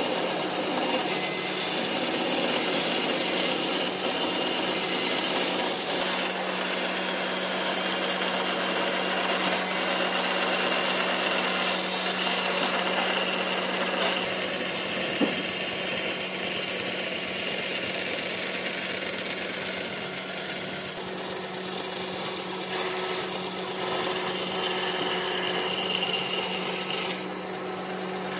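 A power tool working wood: continuous abrasive noise over a steady motor hum, with a single click about halfway through and a duller, lower noise near the end.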